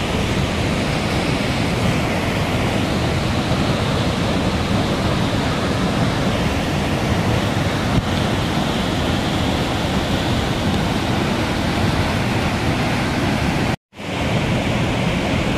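Muddy floodwater rushing steadily over a rocky ledge as a waterfall, a loud even noise, cut off briefly by a moment of silence near the end.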